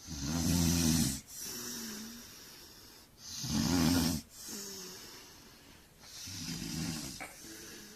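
Loud snoring: three rattling snores on the breath in, about three seconds apart, each followed by a softer, wavering whistle-like tone on the breath out.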